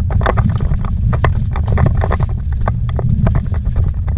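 Vehicle driving fast over a rough dirt road, heard from inside the cab: a steady low rumble of engine and tyres with frequent irregular knocks and rattles as it bounces over bumps and gravel.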